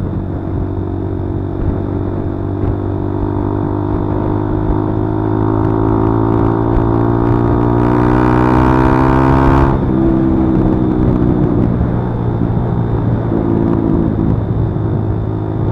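Kawasaki D-Tracker 150's single-cylinder four-stroke engine running under way, its pitch climbing steadily for several seconds as the bike accelerates. About ten seconds in the pitch falls off sharply, and the engine runs on steadily at a lower pitch.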